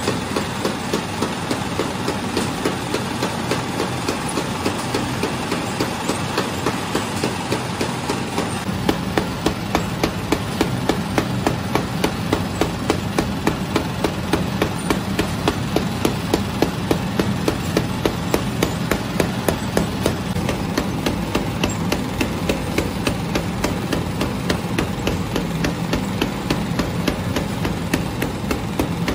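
Automatic flatbread production line running: a steady machine hum with regular clacking knocks, about two a second. A deeper low rumble joins about nine seconds in.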